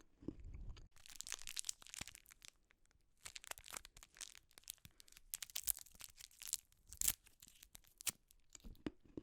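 Candy wrapper being crinkled and torn open in bursts of sharp crackles, after a brief bite of chewing at the start.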